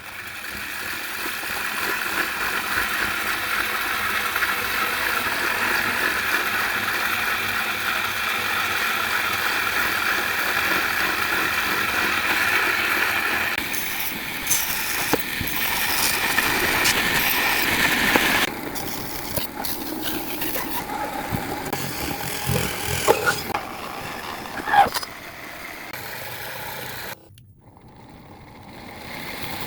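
775 DC motor running at speed, a steady whirring for about 13 seconds, then changing in pitch and load twice, with a few sharp clicks near the end and a short drop-out.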